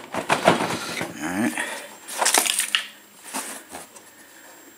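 Handling noises: a few sharp clicks and knocks at the start, a short scraping rustle a little past two seconds in, then faint ticks.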